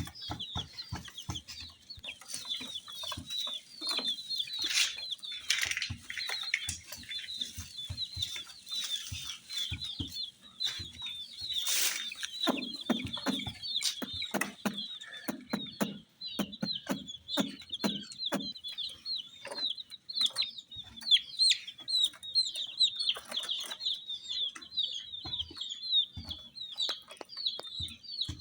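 A group of baby chicks peeping continuously, many short high chirps overlapping, with scattered clicks and taps among them.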